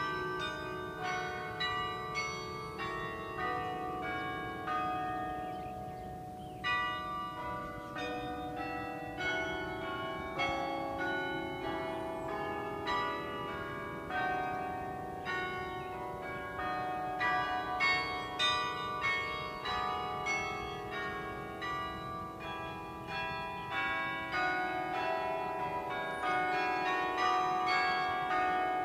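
The 53-bell carillon of the University of Kansas campanile played by hand: a melody of struck bell notes, several a second, each ringing on and overlapping the next.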